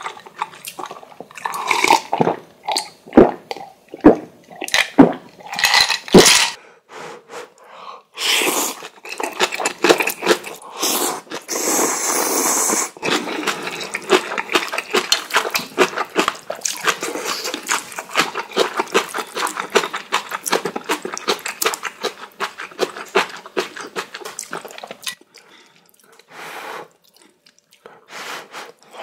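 A man gulping water from a glass several times, then slurping and chewing ramen noodles close to the microphone, a long stretch of wet, rapid mouth sounds that eases off near the end.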